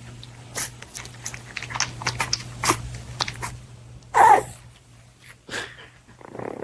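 A dog, with scattered short clicks and one louder call falling in pitch about four seconds in, over a steady low hum.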